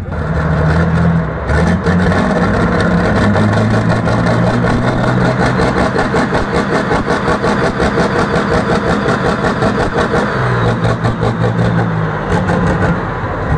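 Pulling tractor's engine running loud with a fast, even firing beat. It steps up in pitch about a second and a half in and drops back near the end, and blows blue smoke from its exhaust stack.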